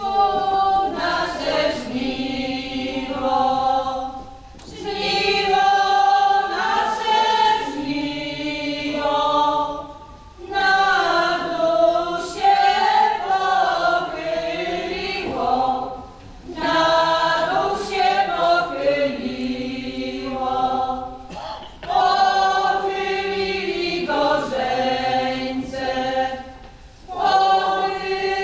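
A group of folk singers in a traditional Polish regional style singing unaccompanied, in phrases of about five seconds with short breaks for breath between them.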